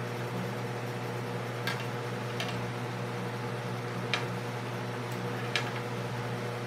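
A steady low hum throughout, with a few light, sharp clicks spread through, as fishing line and tackle are handled.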